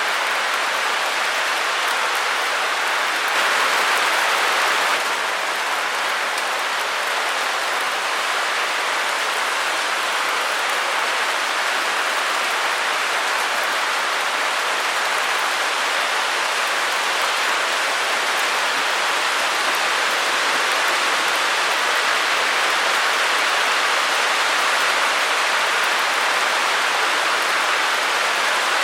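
Steady white-noise hiss with little bass, with a brief swell in level a few seconds in.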